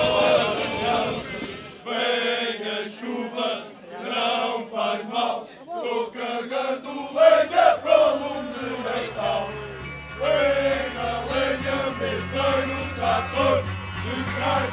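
Male voices singing a song together, with a low steady bass note joining a little past halfway.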